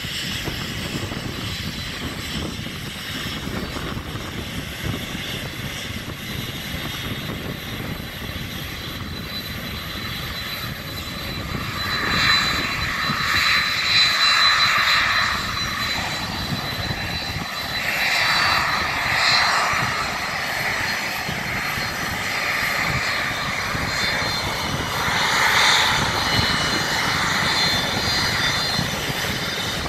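A Boeing 747-400F freighter's four jet engines running at taxi power: a steady rumble with a high whine. The whine swells louder about twelve seconds in, and again twice as the aircraft taxies close by.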